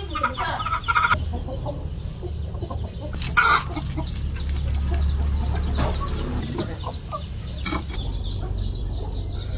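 Chickens clucking, followed from about three seconds in by a fast run of short, high, falling peeps, over a low steady hum.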